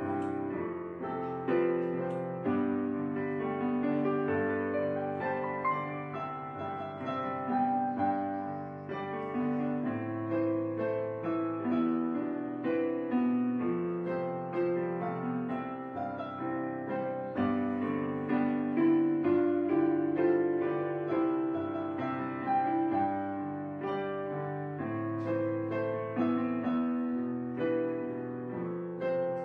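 Soft background piano music, a steady run of sustained chords and melody notes.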